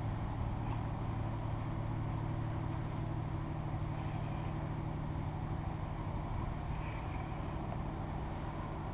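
Steady low drone of an approaching car ferry's engines, easing off slightly toward the end, with a few faint high chirps above it.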